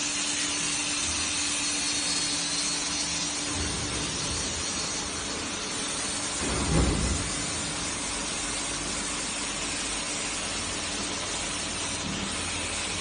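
An industrial washing and drying line running, with a steady rushing hiss of blown air from its ring blower and air knives. A low hum fades out a few seconds in, and a brief low thump comes about seven seconds in.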